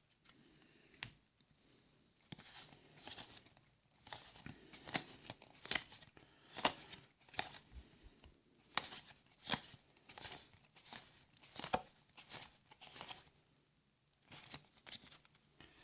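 Magic: The Gathering cards and pack wrappers handled close to the microphone: a run of short, crisp, irregular rustles, snaps and crinkles, with a brief lull near the end.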